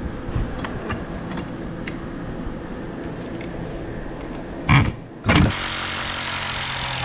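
Cordless reciprocating saw cutting an aluminum shower-door track piece: two short bursts of the saw about five seconds in, then it runs steadily through the cut to the end.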